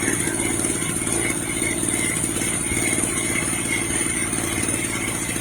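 Small portable generator's engine running at a steady speed, with a faint constant high whine over it.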